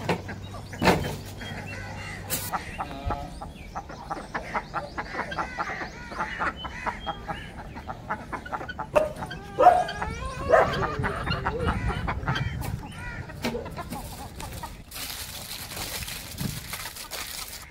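Farmyard poultry calling, with clucking and a crow among the calls, loudest about ten seconds in. Near the end, aluminium foil crinkles as it is crumpled by hand.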